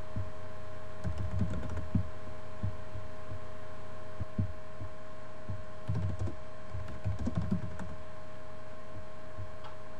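Computer keyboard typing picked up dull and muffled, in two short flurries of keystrokes, over a steady electrical hum.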